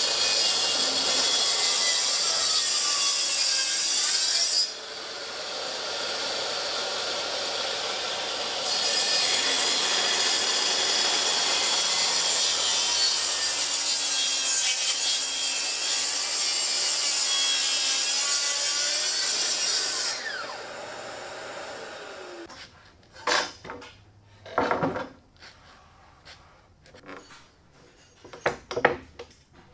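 Plunge-cut track saw running on a guide rail, ripping through a thick live oak slab. The cut eases for about four seconds near the start, then runs on until the saw winds down about twenty seconds in. A few sharp wooden knocks follow.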